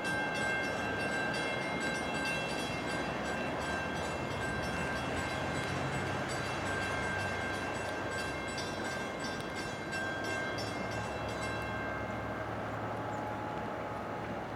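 Train at the station with a rapid metallic ringing, like a locomotive bell, over a low rumble; the ringing stops about twelve seconds in.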